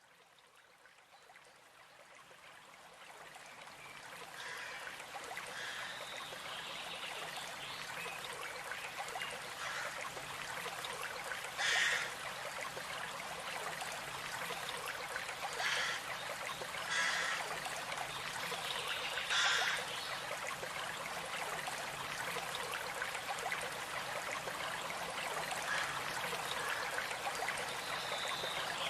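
Stream running steadily, fading in over the first few seconds, with a few short bird chirps over it.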